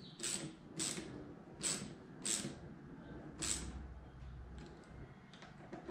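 Ratchet wrench clicking in short strokes, a few clicks at a time, tightening the carburetor boot clamps with an 8 mm socket. Five clear bursts are followed by a few fainter ones near the end.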